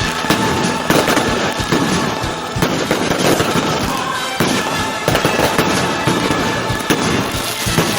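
Fireworks going off in quick succession, a dense run of bangs and crackles.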